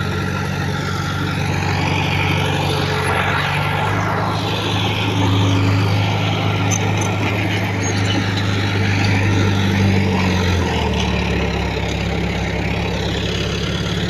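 Heavy earthmoving machine's diesel engine running steadily, its pitch dropping a little about ten and a half seconds in.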